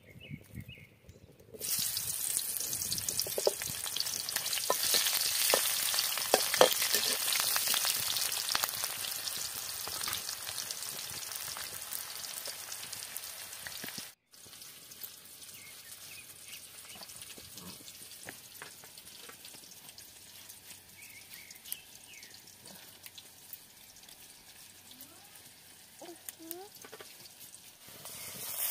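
Sliced onions frying in hot oil in a black wok, a crackling sizzle. It starts suddenly about two seconds in and is loudest for the first several seconds, then after a brief break goes on quieter and steadier. It swells again near the end as an onion-garlic-cumin paste goes into the oil.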